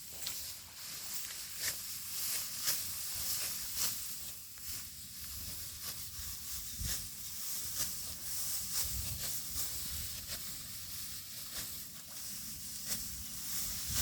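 Dry rice stalks rustling and crackling as rice is cut and handled by hand, with sharp, irregular swishes.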